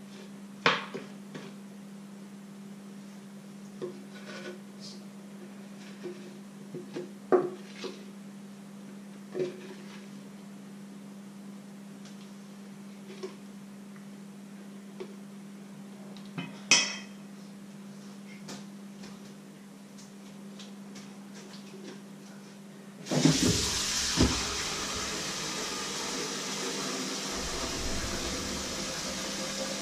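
Kitchen utensil clinking and scraping against a plastic measuring jug and a steel mixing bowl as batter is scraped out, in scattered sharp knocks over a steady low hum. About 23 seconds in, a loud steady rushing noise starts suddenly and carries on.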